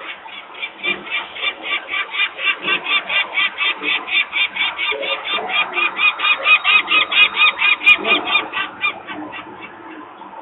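Adult peregrine falcon giving its alarm cacking at a disturbance near the nest: a long run of harsh calls, about four or five a second. The calls grow louder, then thin out and stop a little before the end.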